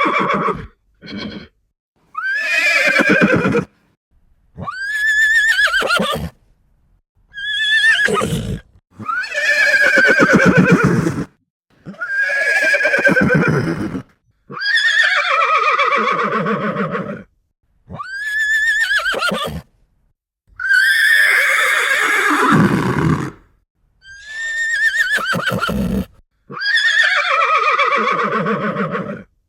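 A series of separate horse whinnies, about a dozen, each a high call that falls in pitch and trembles, lasting one to two and a half seconds, with short silent gaps between them.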